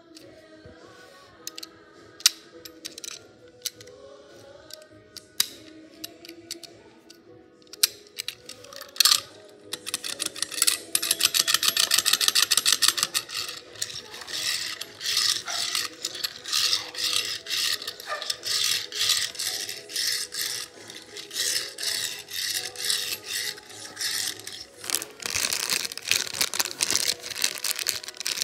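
A die-cast toy car's small wheels rolling and scraping back and forth on a granite countertop, over quiet background music. A few sharp clicks come in the first several seconds, then a fast rattling run about ten seconds in, then repeated rolling strokes.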